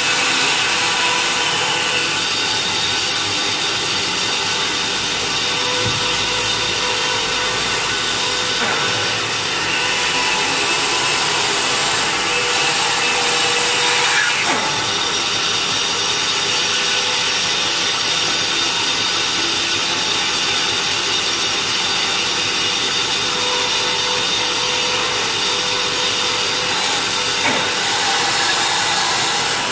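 Band saw running and cutting through a thick block of wood, a steady motor hum under the hiss of the blade in the wood.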